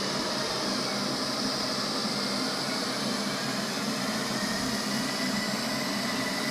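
Robot vacuum cleaner running: a steady rush of noise with a low hum.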